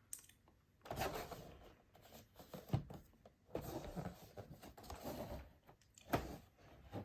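A product box being opened and its packaging handled: irregular, fairly quiet rustling and scraping with a couple of sharp clicks.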